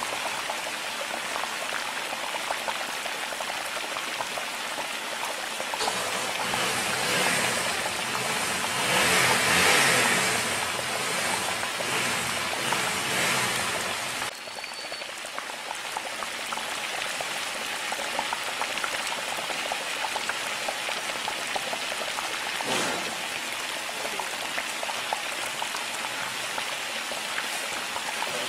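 Milk and grated carrots boiling hard in a pan: a steady crackling, popping bubbling. It grows louder for several seconds in the middle and drops suddenly about halfway through.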